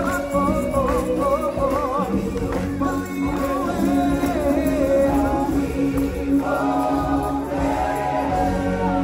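Live stage-musical music: a choir singing held, gospel-style notes with vibrato over an accompaniment, with a fresh set of sustained chords coming in about six and a half seconds in.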